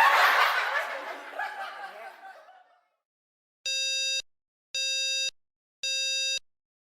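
Group laughter and chatter fading out over the first couple of seconds. After a moment of dead silence come three identical electronic beeps, each about half a second long and spaced about a second apart.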